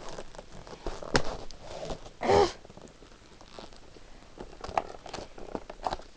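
Plastic and cardboard model-train packaging being handled and pried at: crinkling and rustling with scattered sharp clicks, and one louder, brief sound a little over two seconds in.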